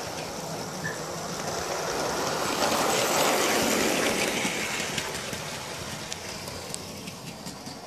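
Heljan Class 47 model diesel locomotive and its rolling stock running along track laid on a wooden floor: a steady rolling rumble that grows louder as the train passes close about three seconds in, then fades as it runs away, with scattered small clicks.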